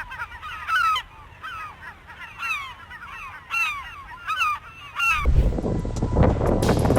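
A flock of birds calling: many short overlapping calls, each curving down in pitch, repeating for about five seconds. About five seconds in they give way abruptly to a loud, steady rushing noise.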